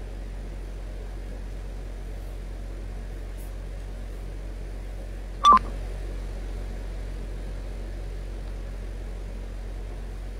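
Steady low electrical hum, with a single short electronic beep about five and a half seconds in.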